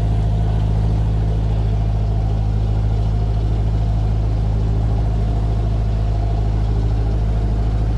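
Narrowboat's diesel engine running steadily at a slow cruising speed, a constant low chug.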